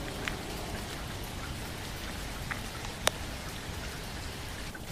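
Steady rain, an even hiss of falling drops, with a few faint ticks of drips and one sharp click about three seconds in.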